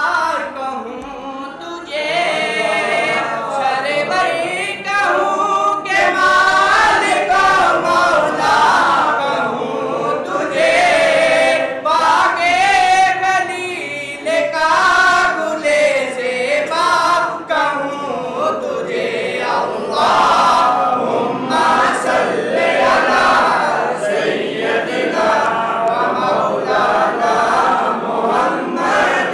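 A group of men singing a Sufi devotional chant together, with one loud lead voice.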